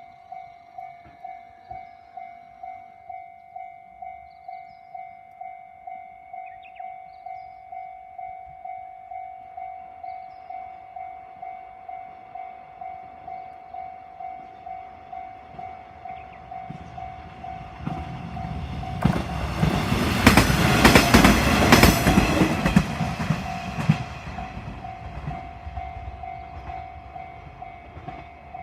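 Japanese level-crossing warning bell ringing in a steady rhythm of about two strokes a second, while a diesel local train approaches and passes over the crossing about two-thirds of the way through, wheels clacking over the rail joints; the train is loudest for a few seconds and then fades as the bell keeps ringing.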